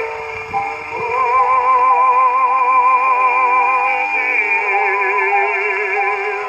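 A 1922 acoustic 78 rpm record played on an acoustic gramophone: a baritone sings with wide vibrato over a small violin, saxophone and piano accompaniment. It has the narrow, thin tone of an acoustic recording, and one long held note runs from about a second in until about four seconds in. Light surface hiss sits underneath.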